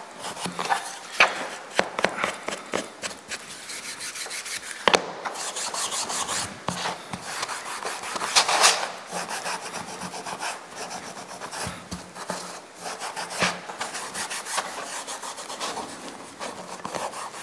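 Bronze wool scrubbed back and forth over a soft white plastic sharpening-stone tray, rubbing off the last Sharpie marks: a dry, scratchy rubbing in many quick short strokes, with a few louder scrapes about one, five and eight seconds in.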